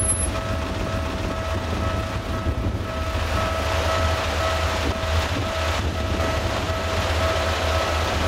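A Japanese level-crossing alarm rings steadily as an Ueda Electric Railway train approaches. The train's rumble and wheel noise build from about three seconds in.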